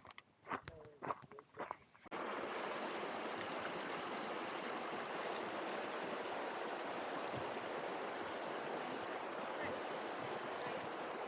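A few sharp clicks and knocks, then about two seconds in a sudden switch to the steady rushing of a fast mountain stream.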